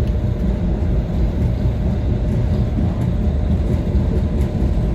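MBTA Blue Line subway train running, a steady low rumble.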